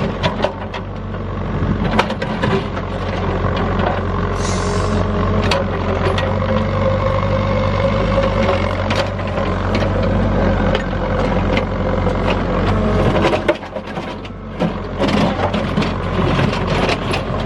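Excavator running and digging into gravel: a steady diesel engine drone with a held hydraulic whine, and scattered knocks and scrapes. The sound eases briefly about two-thirds of the way through.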